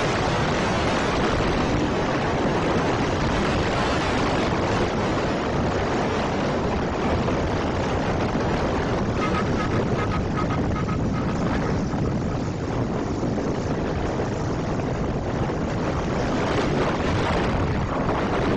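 Steady wind rush buffeting the microphone of a phone filming from a moving vehicle in street traffic, mixed with road noise. A faint repeated beep sounds for a few seconds partway through.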